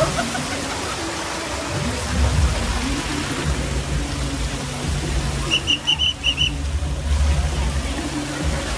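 Steady rush of running water on a water-park slide, with an uneven low rumble beneath it. A little over halfway, a quick run of five short, high pips.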